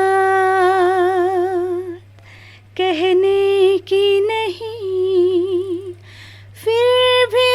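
A woman singing the melody of a Hindi song unaccompanied, largely humming it without words, in long held notes with vibrato. There are three phrases, each separated by a short breath.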